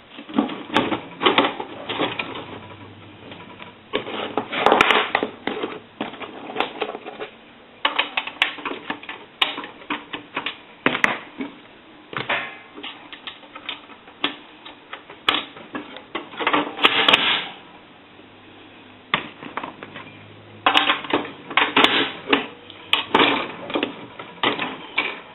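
Irregular bursts of metal clicks, clanks and scrapes as the heavy housing of a Western Electric single-slot payphone is worked onto its base and a T-key is fitted and turned in its lock, with a short lull in between.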